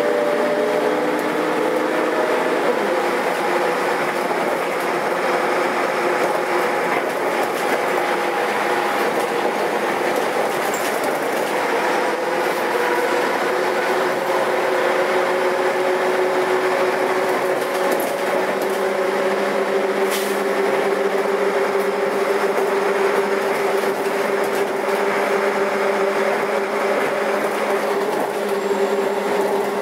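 Karosa B941 articulated city bus heard from on board while driving: a steady engine and drivetrain drone with humming tones that shift in pitch. The pitch rises slowly partway through, then settles lower for the rest.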